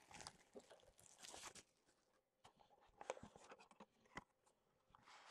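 Faint, intermittent crinkling and rustling of plastic shrink wrap being pulled off a cardboard trading-card box, with a few light clicks of the box being handled.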